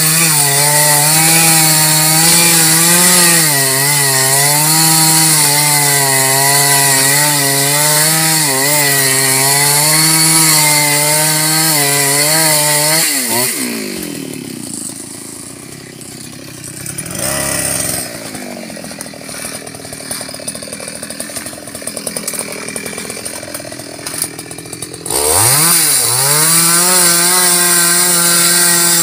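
Gasoline chainsaw running at high revs, cutting through a mù u (Alexandrian laurel) log with a steady high engine note. About thirteen seconds in, the engine drops to a lower, quieter note with light rattling for some ten seconds, then revs back up and runs at full speed again.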